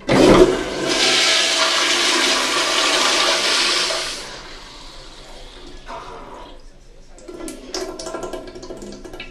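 American Standard Afwall toilet flushed by its Sloan Royal flushometer valve, 1.6 gallons per flush. A sudden loud rush of water runs for about four seconds, then drops to a quieter trickle.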